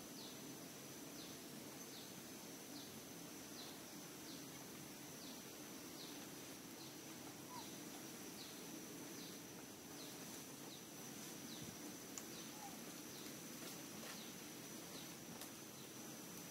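Faint outdoor ambience: a steady high-pitched insect-like whine with a short falling chirp repeating a little more than once a second, over a low steady hum.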